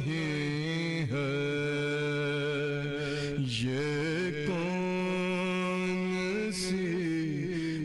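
Male voice chanting a souz, an Urdu mourning elegy, in long held melismatic notes that waver and slide in pitch, with short breaths between phrases.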